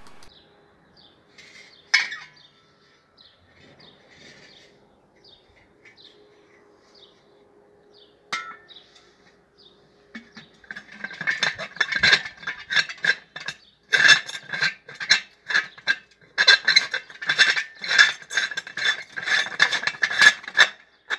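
Glass globe of an old outdoor wall lamp being screwed back onto its metal threaded fitting: a single clink about two seconds in, then from about halfway a fast run of gritty scraping clicks as the glass thread is turned against the metal.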